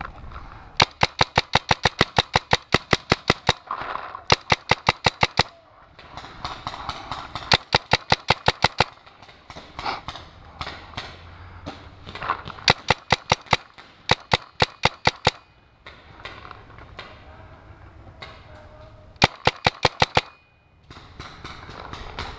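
Hopper-fed paintball marker firing quick strings of sharp pops, several shots a second, in about seven volleys with short pauses between: cover fire.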